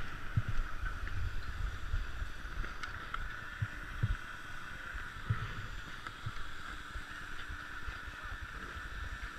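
Wind buffeting the action camera's microphone with irregular low rumbles and knocks, over a steady hiss.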